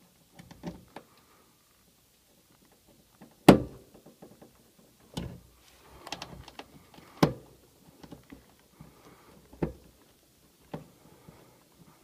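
Hands fitting low-voltage wire connectors inside a sheet-metal air handler cabinet: irregular knocks and clicks with light rustling between them. The loudest knock comes about three and a half seconds in.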